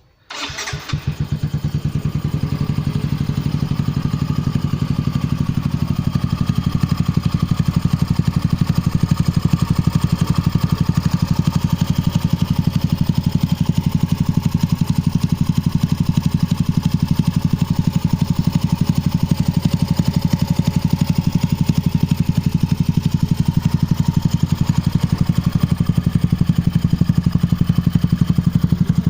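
A Yamaha Mio i 125 scooter's single-cylinder four-stroke engine starts up just after the opening, then idles steadily. It runs through an aftermarket exhaust pipe with a converted tip.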